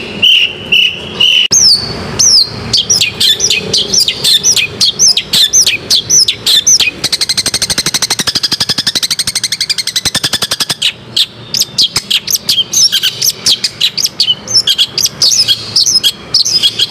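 Long-tailed shrike singing a rapid series of sharp, downward-sliding notes. A fast, buzzy rattle runs from about seven to ten seconds in, then the sharp notes resume.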